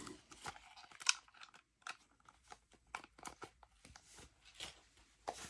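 Packaging being handled: scattered light rustles and clicks of paper and cardboard.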